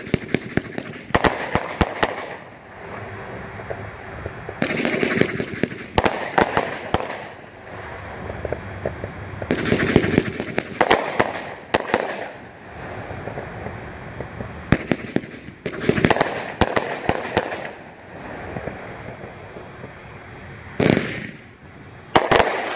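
A 500-gram Academic Pyro fireworks cake firing in volleys: a cluster of launch thumps and crackling bursts about every five seconds, with short lulls between.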